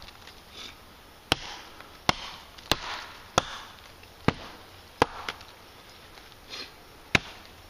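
Small Fiskars hatchet chopping into a fallen tree branch: about eight sharp chops, roughly one a second, with a longer pause before the last.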